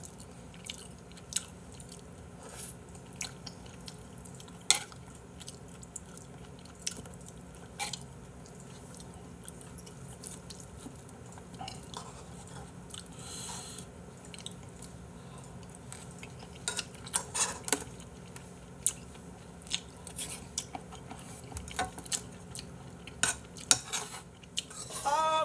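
Metal spoon clicking and scraping against ceramic bowls, with chewing, as a person eats rice and tripe hot pot. Scattered sharp clinks come every second or two, and a short run of them comes between about 16 and 18 seconds in. A musical tune comes in right at the end.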